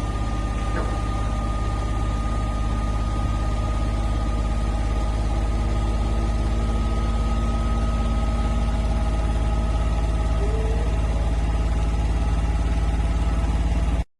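Steady low machine hum with a thin high whine over it, holding unchanged and then cutting off abruptly near the end.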